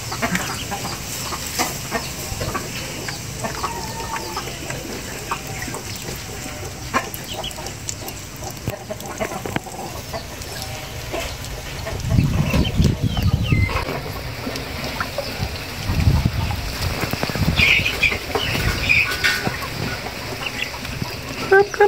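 A flock of ducklings peeping, with many short, high chirps overlapping. There are two louder stretches of low noise, about twelve and sixteen seconds in.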